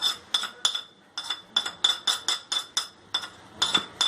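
Spoon clinking against a bowl as spoonfuls of spice powders and cornflour are added for a marinade: a quick, uneven series of sharp ringing clinks, about three or four a second.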